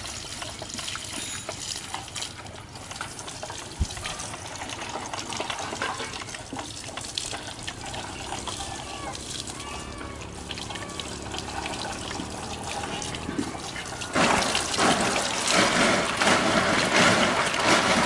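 Scraping, rustling and small clicks of hands clearing caked dirt and debris out of an old motorcycle's under-seat compartment. About fourteen seconds in, a much louder rushing noise starts and continues.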